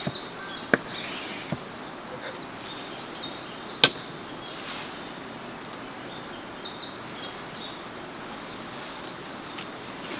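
Crusty olive bread of a cut sandwich being handled and pulled apart, giving a few sharp crackles and clicks, the loudest about four seconds in, over a steady outdoor background hiss.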